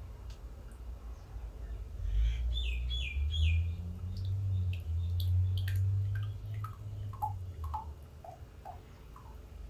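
Olive oil glugging out of an upturned bottle into a measuring jug: a run of short glugs that fall in pitch, higher at first and then lower and more regular, about three a second, over a deep low rumble in the first half.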